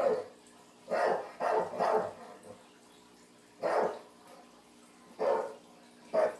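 A dog barking: about seven short barks, including a quick run of three about a second in, then single barks every second or two.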